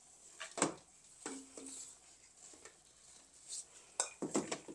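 Dry rustling and light knocks of a bundle of dried stalks and hollow dried gourds being handled and hung up, with a sharper tap about half a second in and a cluster of taps near the end.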